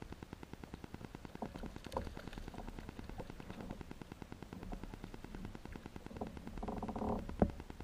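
Rapid, steady crackling interference on the camera's audio, caused by the camera's wireless being switched on. Near the end a brief pitched buzz and one sharp click come through it.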